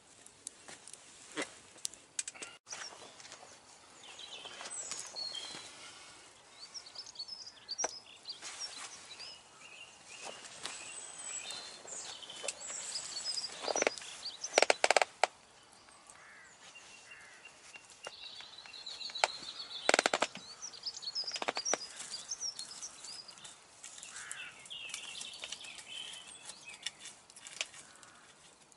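Wild birds chirping and singing, with scattered sharp clicks and knocks; the loudest is a cluster of knocks a little past the middle, and another comes about two-thirds through.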